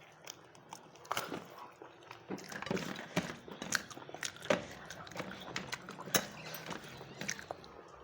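A person eating close to the microphone: irregular chewing with wet mouth clicks and lip smacks.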